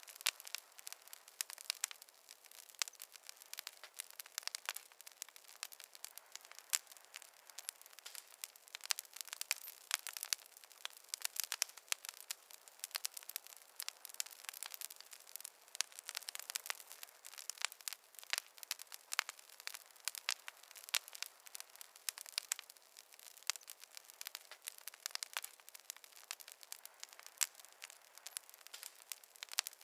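Wood fire in a fireplace crackling: a dense, irregular stream of sharp pops and snaps over a light hiss, with no low rumble.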